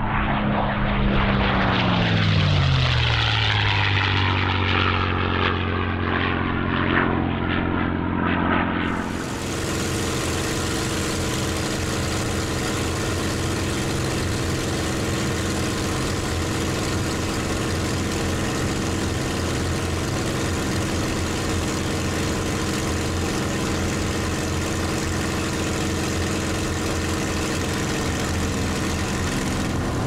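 P-51D Mustang's Packard Merlin V-1650-7 V12 and propeller passing low, its pitch falling as it goes by. About nine seconds in, the sound switches to inside the cockpit, where the Merlin runs steadily under loud wind rush on the landing approach.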